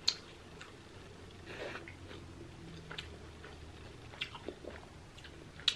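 A person chewing a mouthful of pizza: soft wet mouth sounds with a few sharp lip and tongue clicks scattered through.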